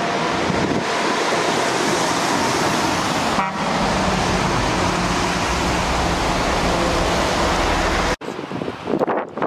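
Steady outdoor rushing noise with a faint low hum in it, like a running vehicle or traffic mixed with rain or wind. It cuts off abruptly about eight seconds in and gives way to a quieter, gusty sound.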